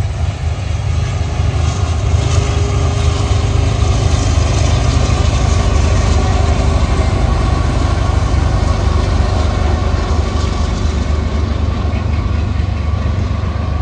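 Diesel locomotives of a CN freight train passing: a steady, heavy low engine rumble that swells about two seconds in and then holds.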